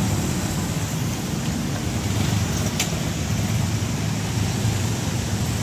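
Steady road traffic of small motorcycles and a car passing close by, a continuous engine and tyre rumble, with a single short sharp tick nearly 3 seconds in.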